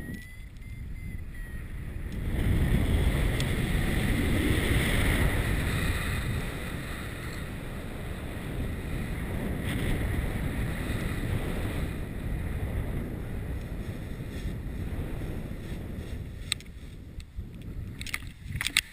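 Airflow buffeting a camera microphone carried by a paraglider pilot in flight: a steady rush of wind noise that eases off over the last few seconds, with a few sharp clicks near the end.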